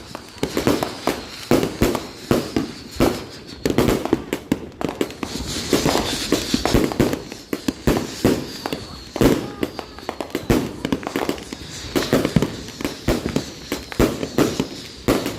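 Multi-shot consumer firework cake firing shot after shot: sharp bangs and crackles over low thuds about once a second, with whistles falling in pitch every second or two.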